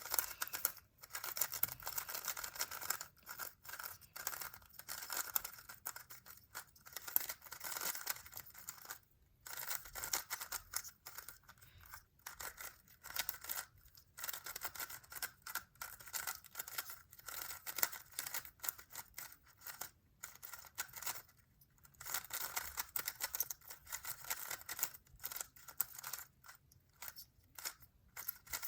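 GAN megaminx being turned by hand for its first turns: a dense, irregular run of smooth, swishy plastic clicks and scrapes as its faces rotate.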